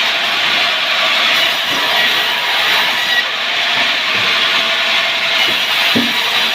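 Power wood saw cutting through timber, a loud, steady noise without a break.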